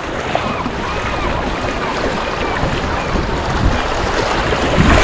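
Steady rush of river water with gusts of wind on the microphone, and faint voices in the background.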